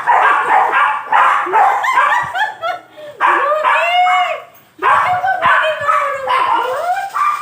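Dogs barking, then a run of high whines and yelps that rise and fall in pitch.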